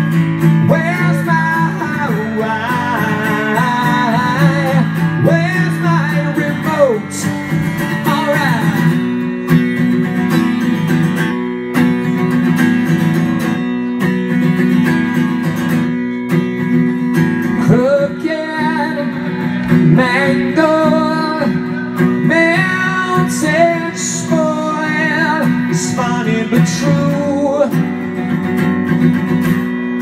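A man singing with a strummed acoustic guitar in a live solo performance.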